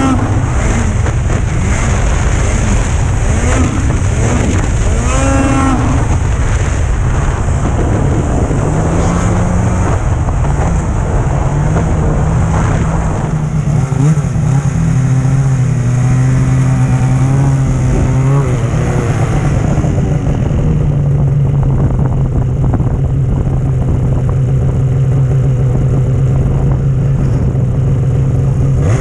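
Snowmobile engine running under the rider: revving up and down in the first few seconds, then settling from about nine seconds in to a steady low idle with an even drone.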